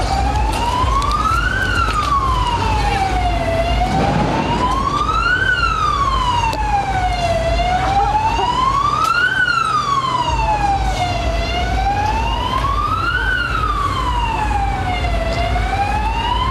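A siren wailing, sweeping slowly up and down about once every four seconds over a steady low rumble.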